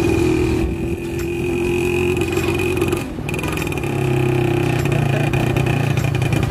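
Small motorcycle engine running while riding along, with a steady high whine over the engine note. The sound dips briefly about three seconds in, then picks up again.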